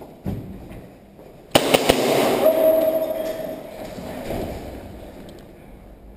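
Three sharp gas airsoft pistol shots in quick succession about a second and a half in, echoing in a large empty room. They are followed by a steady held tone lasting over a second.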